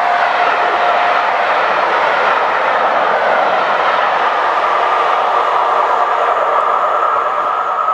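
A steam locomotive's whistle trails off about a second and a half in. After that comes the steady, loud rushing and rolling noise of the steam-hauled train passing. The sound cuts off abruptly at the end.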